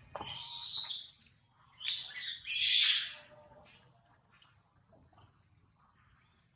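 Baby long-tailed macaque screaming in shrill bursts: one call lasting about a second, then a quick cluster of three more about two seconds in. A steady insect drone runs faintly beneath.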